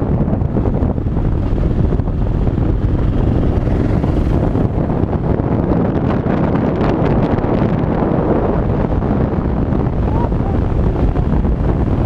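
Yamaha XT600 2KF's air-cooled single-cylinder four-stroke engine running steadily while the bike is under way, with heavy wind noise on the microphone.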